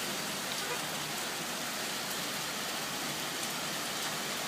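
Steady rain falling and pattering on surfaces, with a few faint scattered drips.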